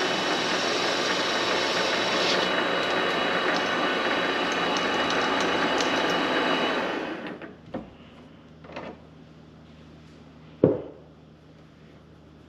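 Vevor MX 400 mini lathe running with a steady whine, stopping about seven seconds in. Then come a couple of light knocks and one sharp knock, the loudest moment.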